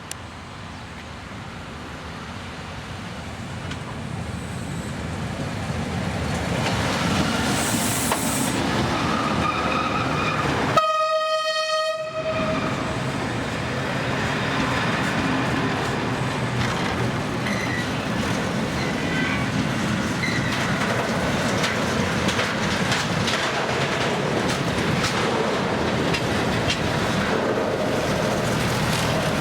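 Freight train approaching and passing close by, growing louder over the first several seconds. About eleven seconds in the locomotive sounds one horn blast of about a second and a half on a single pitch, and then a long string of wagons rumbles past, wheels clattering over the rail joints.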